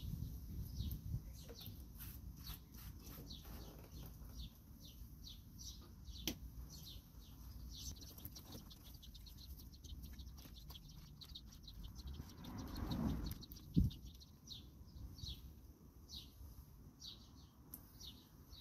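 Small birds chirping in the background, a continual run of short descending chirps. About twelve seconds in, water swishes as a plastic gold pan is dipped and swirled in a tub of soapy water, followed by a single sharp knock.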